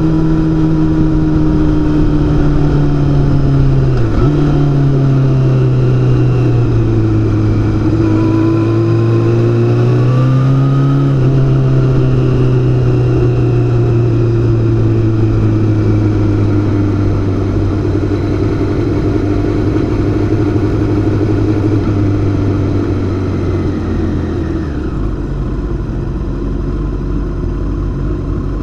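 Yamaha R6's four-cylinder engine heard from on board, running steadily with a brief dip in revs about four seconds in and a climb in revs around ten seconds in. After that the engine note slowly falls as the bike rolls at low speed down the pit lane, dropping further toward idle near the end.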